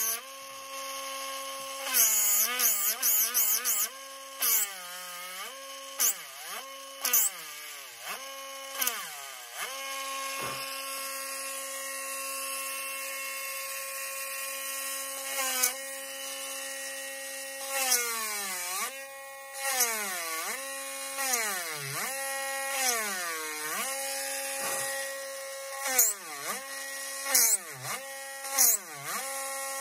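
Handheld rotary tool with a small countersink bit cutting into a wooden fingerboard deck: a steady motor whine that keeps sagging in pitch and recovering as the bit is pressed into the wood, with loud high screeches again and again. The loud screech is the sign of pressing too hard.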